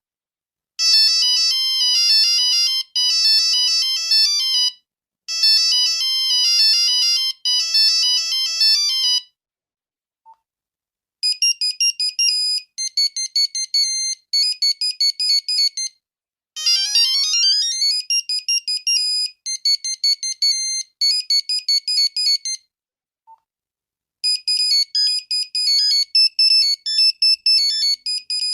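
Nokia 5110 monophonic ringtones playing one after another in plain electronic beeps. A short melody plays twice, and after a pause comes a tune of rapid high beeps broken by a quick rising glide. Another tune starts in the last few seconds.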